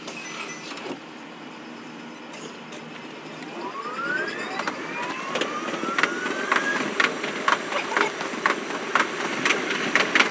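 Keikyu electric train from inside the driver's cab, sped up four times: the traction motors whine rising in pitch as the train gathers speed. Then the wheels click over rail joints in a quick, regular beat of about two a second.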